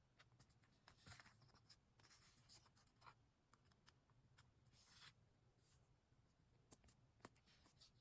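Very faint scratching and scattered light taps of hands working on a paper diary page, like a pen writing.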